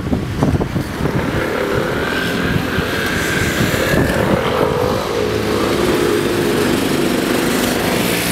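Motor traffic: an engine running steadily with a slight rise in pitch midway. Wind buffets the microphone in the first second.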